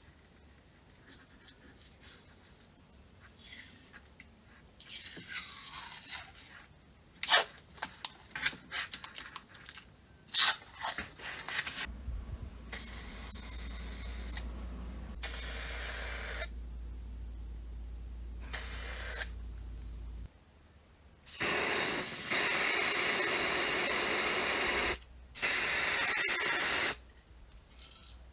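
Several hissing spray bursts from a spray nozzle, each lasting one to four seconds, the longest and loudest near the end; before them, scattered clicks and knocks of parts being handled.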